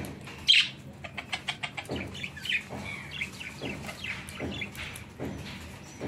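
A flock of budgies chattering in short chirps and warbles, with a loud chirp about half a second in and a quick run of sharp clicks about a second in.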